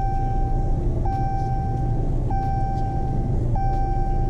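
Dodge Charger SRT Hellcat's warning chime sounding over and over, a single-pitched ding of about a second repeating roughly every 1.25 seconds, over a steady low rumble.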